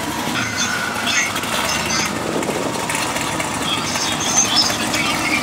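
A car engine running steadily.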